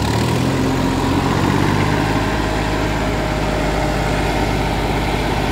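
Massey Ferguson 35 tractor engine idling just after being started, settling into a steady idle within the first second.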